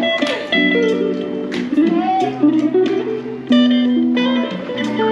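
Guitar being played: plucked single notes and chords with sharp attacks over a low held bass note, which comes in about two seconds in and briefly stops near the end.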